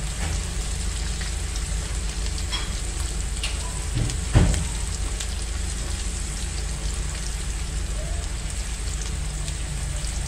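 Pork slices frying in oil in an aluminium wok, a steady sizzle, with a few light clicks from chopsticks turning the meat and one louder knock about four seconds in.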